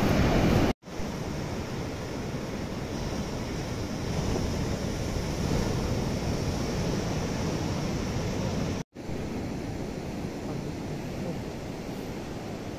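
Ocean surf breaking on the beach below, a steady rushing wash, mixed with wind buffeting the microphone. The sound cuts out completely twice, for an instant each time.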